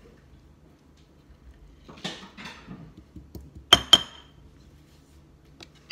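A metal spoon scraping avocado flesh out of its skin, then two sharp ringing clinks as the spoon is struck against a stone molcajete bowl.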